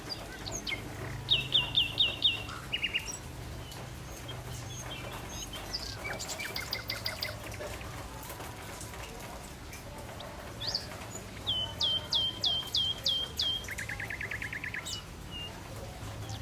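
Songbirds singing. One bird twice gives a loud phrase of about six quick, repeated down-slurred whistles, each phrase ending in a faster, lower trill, while other birds add scattered chirps over a low steady hum.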